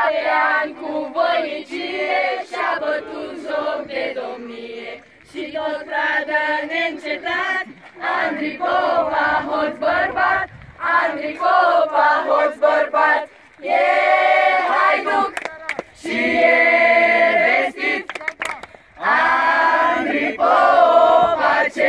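A group of men and women singing together, in phrases broken by short pauses.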